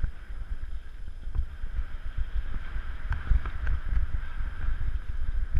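Wind buffeting the microphone during a mountain bike ride, with a steady rush of tyre and trail noise and a few sharp clicks and rattles from the bike.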